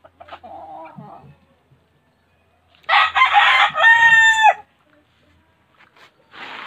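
A gamecock (fighting rooster) crows once about three seconds in, lasting about a second and a half. The crow starts rough and ends in a clear held note that drops away. A few faint, softer sounds come in the first second.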